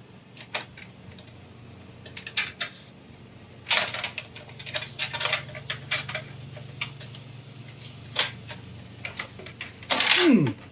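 Stainless steel malt basket and its support ring in an Anvil Foundry 10.5 brewing kettle clinking and knocking as the ring is worked into place to hold the basket up. Scattered metal clicks and taps, with a louder scraping burst ending in a falling tone near the end.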